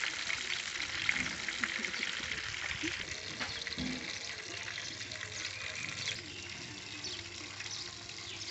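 Food sizzling and crackling in oil in a wok on a portable gas stove, densest for the first three seconds, then dying down.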